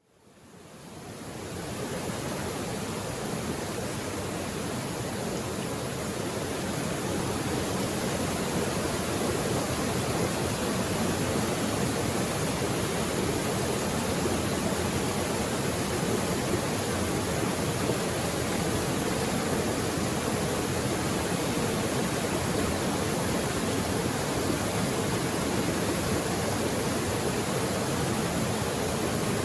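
Mountain creek water rushing steadily over rocks, a constant even rush that fades in over the first couple of seconds.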